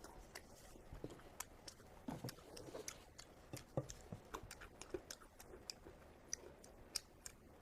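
Close-miked chewing of steamed pork belly: faint, irregular small mouth clicks, several a second.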